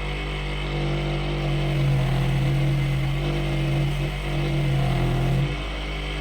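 Electric power tool motor running with a steady hum; its tone wavers and drops about five and a half seconds in.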